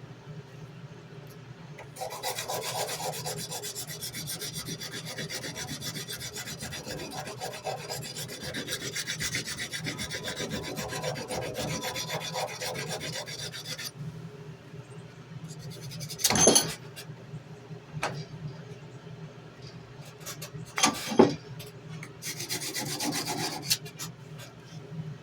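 Hand sanding a steel tanto knife blade with wet sandpaper: rapid back-and-forth scraping strokes for about twelve seconds, then a pause broken by two sharp knocks, and another short spell of sanding near the end.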